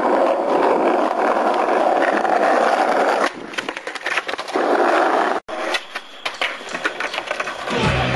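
Skateboard wheels rolling over rough asphalt, a loud steady rumble. About three seconds in it breaks off into clicks and knocks, comes back briefly, then drops away. Music starts near the end.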